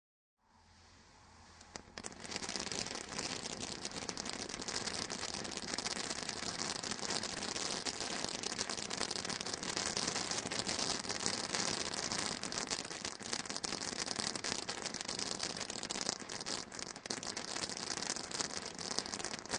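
Silver glittering garden fountain firework: a faint hiss, then about two seconds in the fountain catches and sprays with a steady loud hiss thick with fast crackling.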